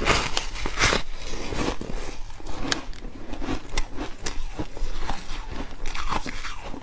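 Close-miked biting into a porous slab of frozen foam ice: two loud crunching snaps in the first second, then chewing with many small crunches and crackles.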